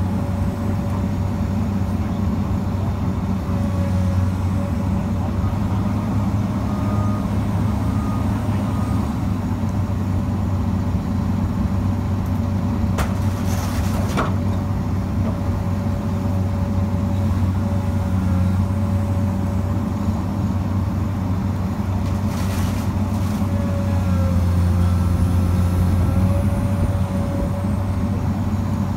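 Komatsu hydraulic excavator's diesel engine running steadily, with a steady whine over the low hum. A few brief clicks come around the middle, and the engine swells slightly for a couple of seconds near the end.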